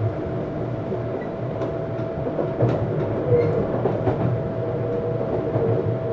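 Running sound inside a Tokyu 7700 series commuter car under way: a steady rumble of wheels on track with a constant hum from the traction equipment, and a few clicks as the wheels cross rail joints.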